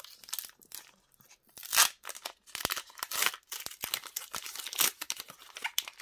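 Foil wrapper of a Pokémon booster pack being torn open and crinkled by hand: a run of irregular crackling rips, the loudest about two seconds in.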